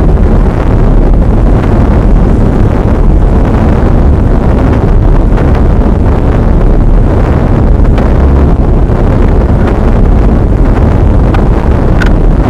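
Wind buffeting the microphone: a loud, steady low rumble with a few faint ticks.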